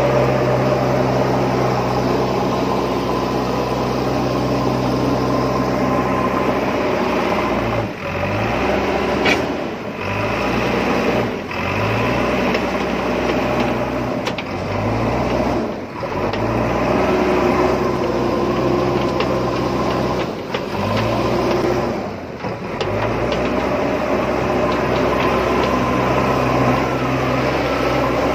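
Motorized toy wheel loader's small electric motor and plastic gears whirring steadily. Several times in the middle it briefly cuts out, and each time it starts again it rises in pitch.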